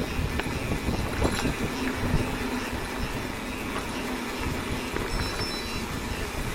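Mountain bike riding over a dirt trail: a steady low rumble of tyres and the moving bike, with scattered small clicks and rattles from the bike.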